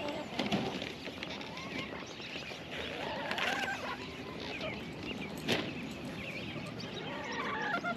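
Chickens clucking and calling inside a chicken tractor as it is shifted sideways across the grass, with a couple of sharp knocks, the loudest about five and a half seconds in.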